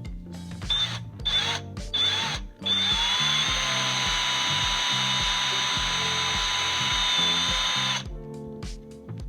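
Electric drill bit enlarging the rod hole in a door handle's lock lever: a few short trigger bursts, then a steady run of about five seconds that rises in pitch as it spins up and cuts off abruptly.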